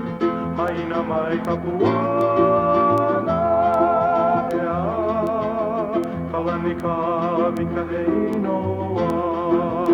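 Background music: plucked guitar and bass under a sliding, wavering lead melody.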